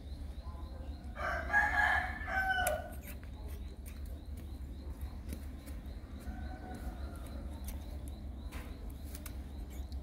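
A rooster crowing once, about a second in, the loudest sound; a fainter crow follows around six seconds in, over a steady low hum.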